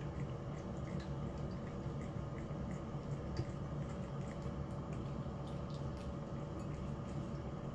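A cat eating from a ceramic bowl: small wet chewing and licking clicks scattered throughout, over a steady low hum.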